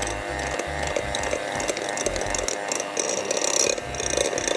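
Electric hand mixer running steadily, its beaters churning a thick chocolate cupcake batter in a glass bowl and clicking against the glass.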